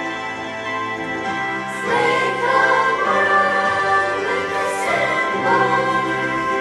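Choral music: a choir singing sustained notes with accompaniment, growing fuller and louder about two seconds in.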